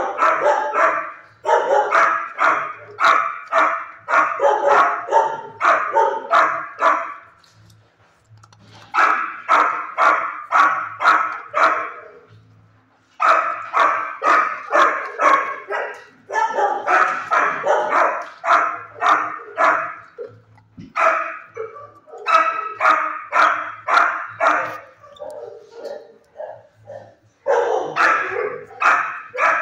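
Shelter kennel dogs barking in long runs of sharp barks, two or three a second, broken by a few short pauses.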